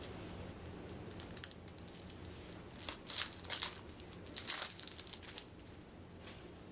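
Plastic wrapping crinkling and tearing as it is pulled off a deck of game cards, in three short bouts.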